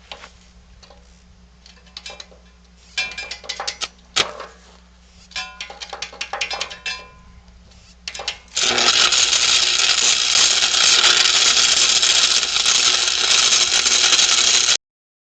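Metal clinks and clatter as steel parts and tools are handled, then about six seconds of loud, steady, crackling arc hiss from an electric arc on steel, which cuts off abruptly.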